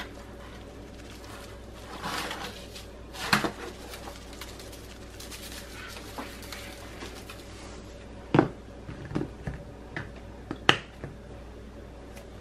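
Scattered short taps, clicks and rustles of a seasoning shaker being shaken and handled over fish in a disposable aluminium foil pan, the loudest about eight and eleven seconds in, over a faint steady hum.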